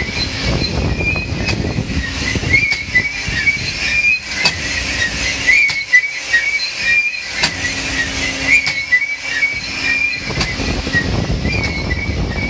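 Vertical honing machine spinning a hone in an engine block's cylinder bore: the abrasive stones squeal against the bore wall in a wavering high whistle, over the low running noise of the machine, with scattered clicks.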